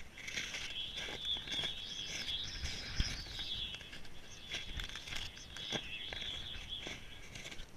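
A camera housing scraping and sliding over snow-covered ice: a steady, wavering hiss broken by scattered knocks, the sharpest about three seconds in.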